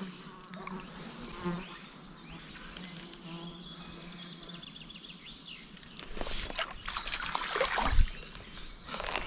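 A fly buzzing close to the microphone, a steady low hum. From about six seconds in come louder rustling swishes, the loudest a sharp knock about eight seconds in.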